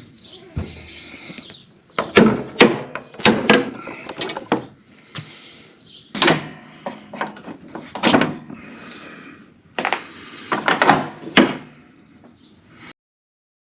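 Irregular knocks and clanks of hands and tools working on a lawn tractor's mower deck linkage and pins, cutting off suddenly near the end.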